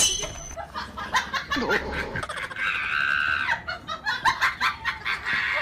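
People laughing, over a run of quick, sharp claps.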